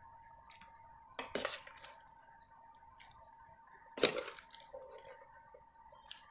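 A metal spoon clinking against glass bowls a few times while syrupy candied watermelon-rind pieces are spooned in, with soft squelches; the loudest clink is about four seconds in.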